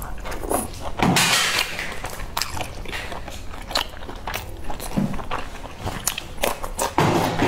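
Close-miked eating: wet chewing and smacking of boiled dumplings dipped in chili sauce, with many sharp mouth clicks and a short loud hiss about a second in. Near the end comes a crisp bite into a raw green onion stalk.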